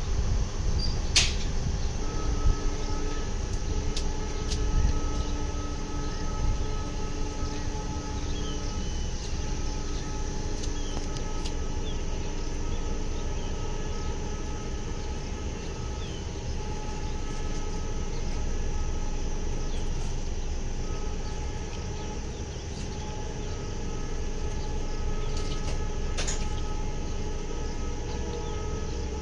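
Passenger train rolling past: a steady rumble of the coaches' wheels on the rails, with a few faint sustained tones and occasional sharp clicks, the strongest about a second in and again near the end.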